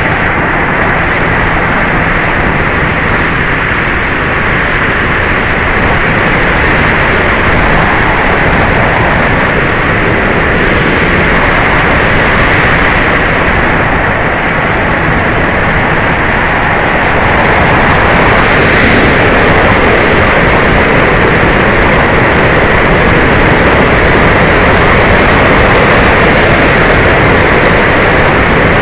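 Electric motor and propeller of an E-Flite Apprentice RC trainer plane in flight, mixed with wind rush, heard through the plane's onboard FPV camera microphone. It is a loud, steady noise that grows a little louder about two-thirds of the way in.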